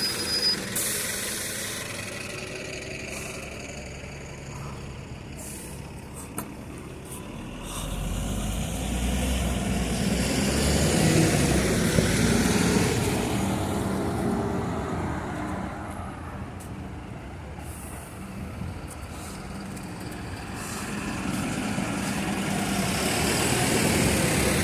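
Street traffic: a heavy road vehicle rumbles past, swelling from about eight seconds in, loudest around twelve seconds, then fading, with another vehicle coming up near the end.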